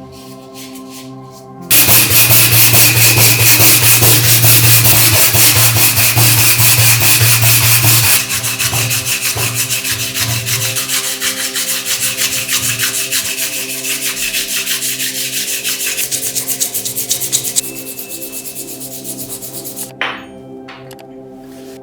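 Power sanding on a Zippo lighter's metal case: a loud, rapid, steady scraping over a motor hum. It eases somewhat partway through and cuts off with a click near the end.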